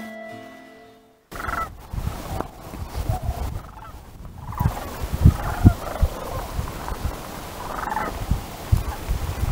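Sandhill cranes calling with rolling, trilling calls, several times over, against low rumbling buffets on the microphone. A guitar piece cuts off suddenly just over a second in.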